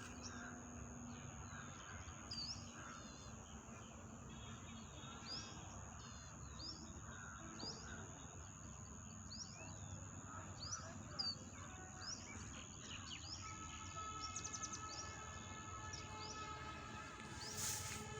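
Outdoor ambience: a bird repeating a short rising chirp about once a second over a steady high-pitched insect drone. From about two-thirds of the way through, an insect buzzes close by, and a brief hiss comes near the end.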